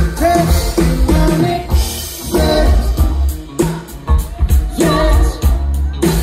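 Live pop band playing, with a singing voice over drums, bass, electric guitars and keyboards.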